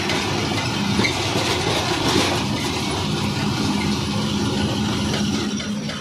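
Ashok Leyland 14-tyre truck driving at road speed, heard from inside the cab: a steady engine drone under road and cab noise, with a single knock about a second in.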